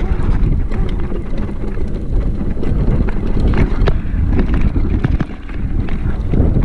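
Mountain bike riding downhill on a rough dirt trail: heavy wind buffeting on the microphone and tyre rumble, with many small rattles and knocks as the bike bounces over the ruts.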